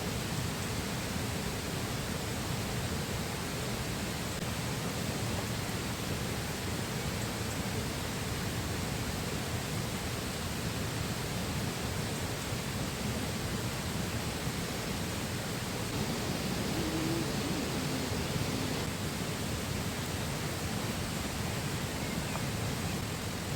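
Steady rushing of a flowing river, an even wash of water noise with no breaks.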